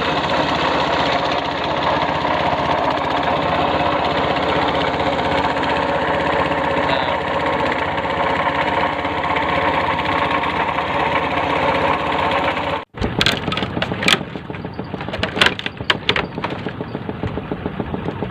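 A small engine running steadily. About 13 seconds in the sound cuts, and a quieter engine sound follows with irregular sharp knocks.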